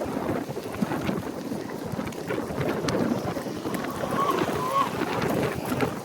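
Wind buffeting the microphone as a steady rough rumble, with scattered small clicks. Two short high chirps come about four and a half seconds in.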